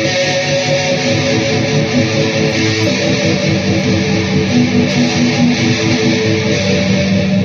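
Electric guitar played through a Peavey VYPYR X2 modeling amplifier: strummed chords left ringing, with the notes changing a few times.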